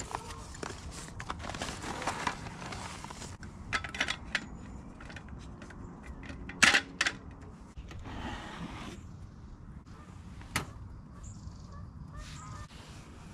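Rustling of a nylon bike bag being rummaged and unpacked, then sharp metallic clicks and clacks as a folding aluminium camping table is opened and its legs snapped into place, the loudest pair about six and a half seconds in.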